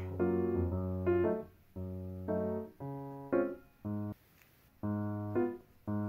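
Background music: a keyboard melody played in short phrases with brief pauses between them.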